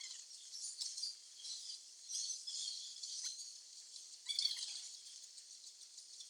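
Outdoor background of high-pitched chirping from birds and insects, steady and fluttering throughout, with a few faint clicks.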